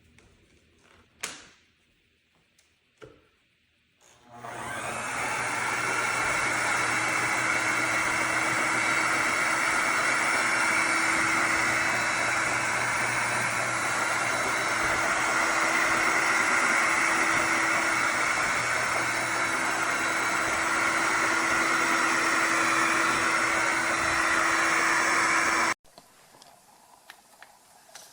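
A few sharp clicks, then a Shark HydroVac MessMaster cordless wet-dry vacuum mop starts up about four seconds in and runs steadily with a held whine, cutting off suddenly near the end.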